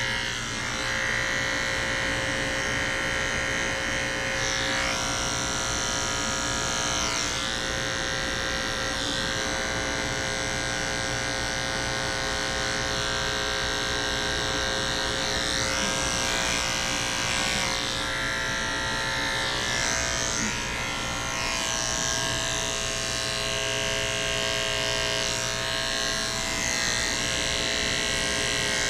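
Electric grooming clippers running steadily with a constant buzzing hum, working the fur around a dog's eyes to shave off crusted eye discharge. The higher part of the hum shifts briefly every few seconds.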